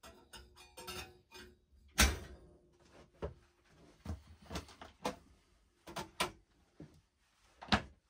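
Kitchen clatter in a caravan galley: a string of knocks and clinks from coffee-making things set down on the counter and an overhead cupboard door being handled. The loudest knock comes about two seconds in, with another sharp one near the end.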